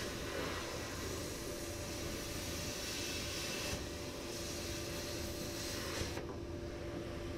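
Plasma cutter cutting through a quarter-inch-thick steel I-beam: a steady hiss of the arc and air jet over a constant hum with a few steady tones.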